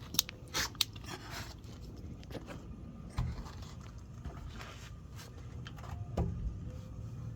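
Footsteps and scuffing on the ground, with a few sharp clicks and knocks that are loudest in the first second.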